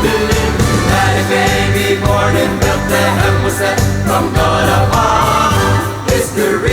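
A Christmas song playing: voices singing over the backing music.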